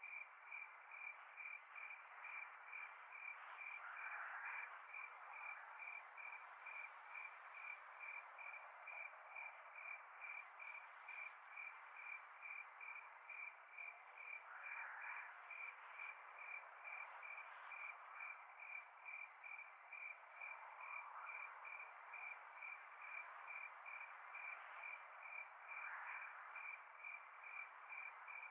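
Evening insect chorus: a cricket chirping steadily, about twice a second, over a continuous faint hum of other insects, with a few brief louder calls rising above it now and then.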